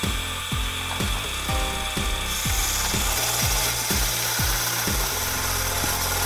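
A woodturning tool cutting the outside of a spalted hickory cup spinning on a lathe: a steady rasping hiss that grows stronger about two seconds in. Background music with a steady beat runs underneath, its beat dropping out near the end.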